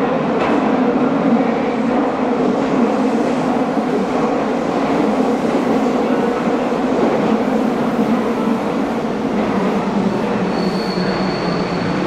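Meitetsu electric train moving through an underground station platform: a steady, loud rumble of wheels on rail, with a brief high squeal near the end.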